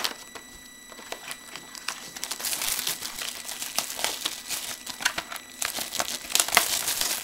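Plastic and foil packaging of a trading-card box and its packs crinkling and crackling as it is handled. The crinkling is sparse at first and grows busier about two seconds in.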